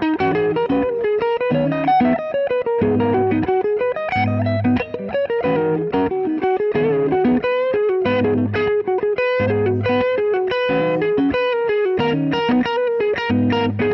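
1965 Gibson Firebird I electric guitar with two P90 pickups playing a quick single-note riff. Low notes are struck every second or two between the higher picked notes.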